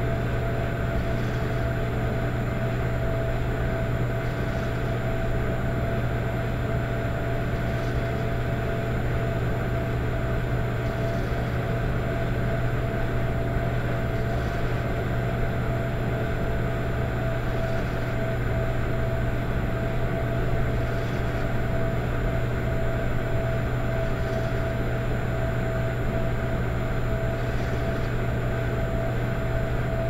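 Electric fireplace running with a steady low hum and a mid-pitched whine, overlaid by a faint, soft rhythmic pulse about every three seconds, a rhythmic soft snoring noise.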